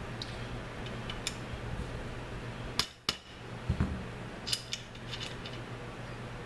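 Light metallic clicks and clinks of small hand tools and parts being handled on a workbench: a handful of separate sharp ticks, over a steady low hum.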